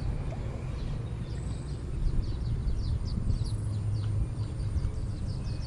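Wind buffeting the microphone in a steady low rumble, with a bird chirping in a quick run of short falling notes from about a second in.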